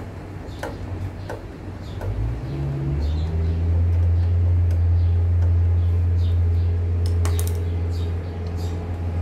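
Light metallic clicks and taps as small parts and tools are handled on a lawn mower engine's carburettor, over a steady low hum that gets louder about three seconds in.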